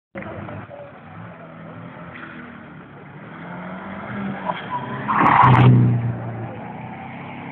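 Small hatchback car being driven hard through a cone slalom: its engine revs up and falls back between cones, and about five seconds in it passes close by in a loud burst of engine and tyre noise as the tyres scrub through the turn, then runs on at a steady low engine note.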